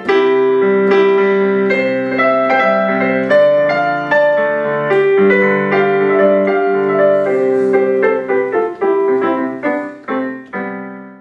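Piano music, a steady flow of struck notes that grows quieter over the last few seconds and dies away.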